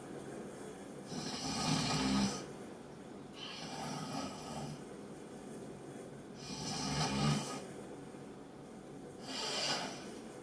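A sleeping woman snoring: two loud snores on the in-breath, each followed a second or so later by a softer, breathy exhale.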